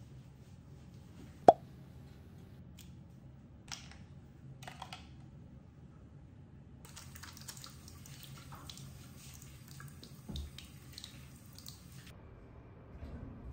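Small objects being handled: one sharp click about a second and a half in, then a few quieter taps, and a faint hiss through the second half.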